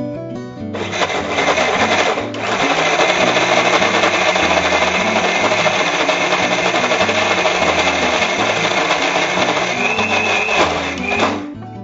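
Indian mixer grinder running at full speed, grinding soaked raw rice and urad dal with water into batter. It starts about a second in, falters briefly about two seconds in, and stops just before the end.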